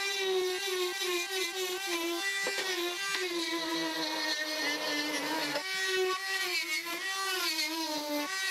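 Handheld rotary tool with a small bit running at high speed, cutting away the plastic of an angle grinder's switch housing. Its whine wavers in pitch as the bit bites into the plastic and eases off.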